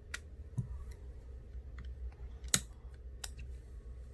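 A few sharp, small clicks and taps from handling the iPhone XR and small repair tools as the phone is put back together, the loudest about two and a half seconds in. A low steady hum lies underneath.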